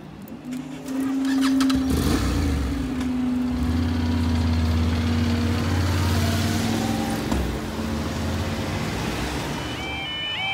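Road vehicles driving off over a railway level crossing as the lifting barriers rise, with a steady engine sound. Near the end the crossing's warbling yodel alarm starts, repeating about twice a second.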